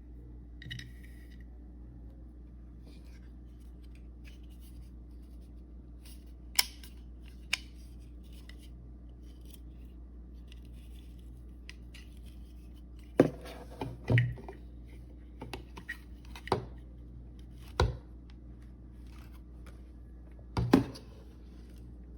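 Scattered clicks, taps and knocks of objects being handled, over a steady low hum. The loudest knocks come about a third of the way in, in a cluster near the middle, and near the end.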